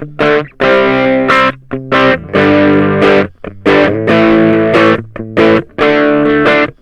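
Ibanez GAX30 electric guitar on its bridge pickup, played through a Klon Centaur-style overdrive pedal: mildly distorted chords in short stabs, each cut off sharply with brief gaps between.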